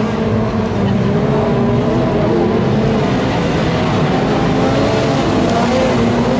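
Several autocross cars' engines revving hard together as they race in a pack, their pitches rising and falling against each other with loose dirt and tyre noise underneath.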